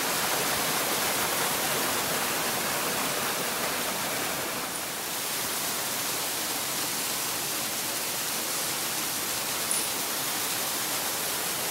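Rushing water of a mountain stream cascading through a gorge: a steady, loud, even rush, dipping slightly about five seconds in, with one small tick near the end.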